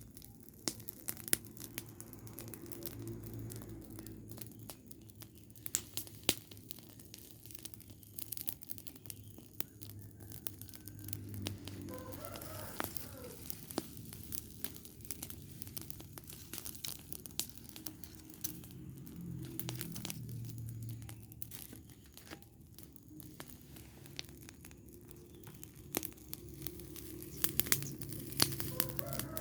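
Rubbish fire burning, with irregular sharp crackles and pops throughout.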